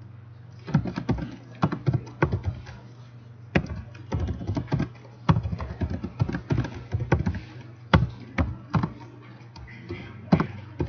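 Typing on a computer keyboard: irregular, separate key clicks over a steady low hum.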